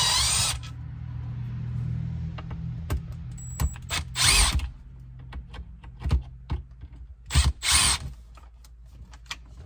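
Small Milwaukee cordless screwdriver running in short spells, backing out two Phillips screws from console trim.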